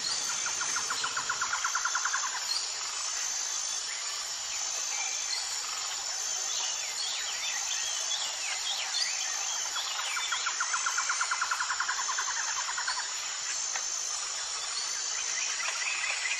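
Nature ambience of insects and birds. A steady high insect buzz pulses on and off about once a second. A rapid pulsing trill comes twice, near the start and again past the middle. Scattered bird chirps fall between the trills, and a higher trill begins near the end.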